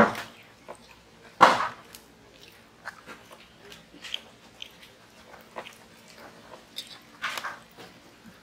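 Close-up eating sounds: hands squishing and mixing rice on steel plates, with small clicks and chewing. Three louder short bursts stand out: one at the start, the loudest about a second and a half in, and another near the end.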